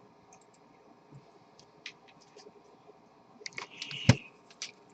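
Computer keyboard and mouse clicking in scattered light taps, with a louder knock about four seconds in.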